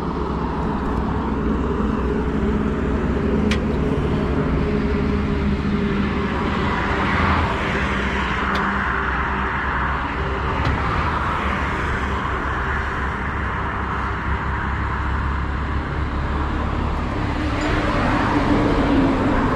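Highway traffic passing: a steady low engine rumble, with tyre and wind noise swelling as vehicles go by, twice. A few faint sharp clicks.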